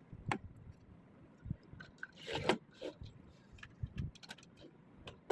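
Small plastic clicks, knocks and rattles from a LEGO Technic mechanical door being worked, with a louder scraping rush a little over two seconds in.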